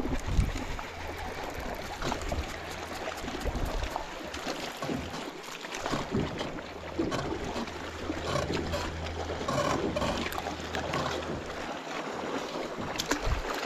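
A boat's motor humming low and steady, running for a few seconds, stopping, then running again, with water and wind noise and scattered light clicks around it.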